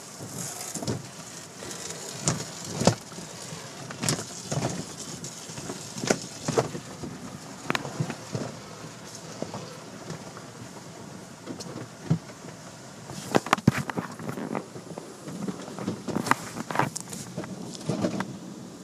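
Automatic car wash heard from inside the car: water jets hissing onto the body and glass while cloth wash strips and brushes slap and scrub against the windows and panels, with irregular thuds and clusters of slaps, heaviest about 13 to 14 seconds in.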